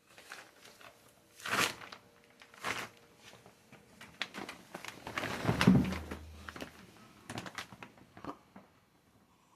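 Irregular rustling, clicks and knocks of things being handled, with two sharp louder knocks early on and a heavier thump about halfway through.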